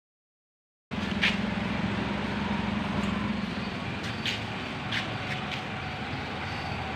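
Motor vehicle engine running steadily with street background noise, starting suddenly about a second in; a low hum fades a few seconds later, and a few short high squeaks sound briefly.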